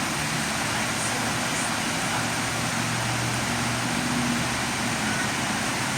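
Heavy rain pouring down, a dense, even hiss, with a faint low hum underneath that is strongest around the middle.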